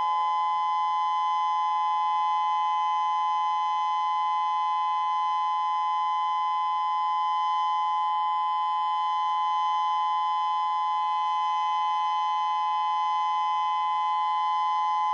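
Civil defence warning siren sounding one steady, unbroken two-note tone, sounded to test the warning system against a possible nuclear attack.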